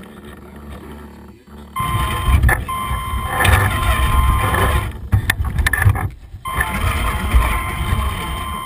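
Radio-controlled scale trial truck driving, a steady whine over a low rumble, as it crawls over dirt and stones. It starts about two seconds in and breaks off briefly past the middle with a few sharp knocks, then runs on.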